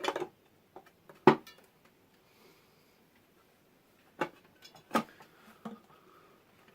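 Sharp metal clinks and knocks from New Process 231 transfer case parts as a part is worked and seated into place. The loudest is about a second in, and a few more come near the end.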